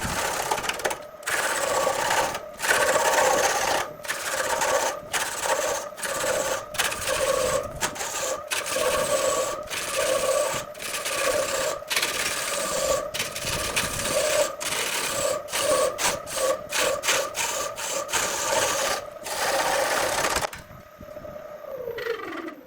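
An electric woodworking power tool runs under load on wood, a rough grinding and rubbing sound over a steady motor hum, with frequent brief breaks. Near the end it is switched off and the motor winds down with a falling pitch.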